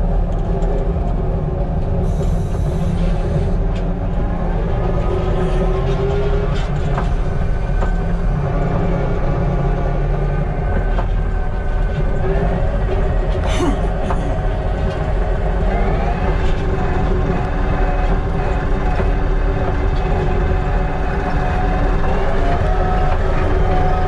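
Kubota SVL95-2s compact track loader running and travelling, heard from inside the cab: a steady diesel engine note with the pitch rising a few times as it revs up. A single sharp clank about halfway through.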